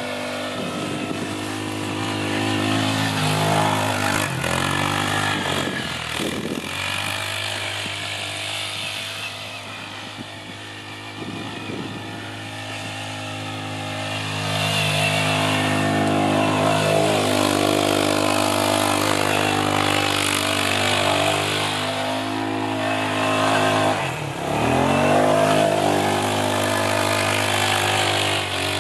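TGB 550 LT quad bike's single-cylinder four-stroke engine running hard through snow, the revs rising and falling as it is ridden. The engine note twice drops sharply and climbs back, about five seconds in and again about four seconds before the end, and it grows louder and fainter as the quad moves about.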